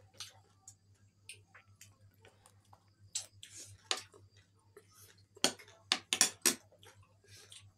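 Close-up eating sounds: scattered small clicks and crunches of food and utensils, with four sharper clicks together about five and a half to six and a half seconds in.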